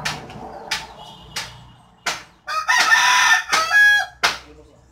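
Rooster crowing once: a long, loud call about two and a half seconds in that shifts pitch near its end, with a few short sharp sounds before it.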